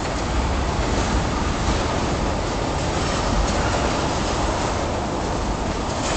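A train of railroad tank cars rolling past, with a steady noise of steel wheels running on the rails.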